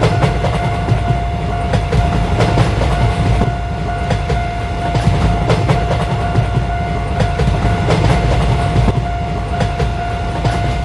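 Train passing: a loud low rumble with the clatter of wheels over rail joints, and a steady high tone held above it.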